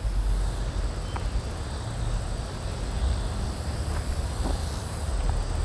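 Wind rumbling on the microphone, with a few faint footsteps on grass.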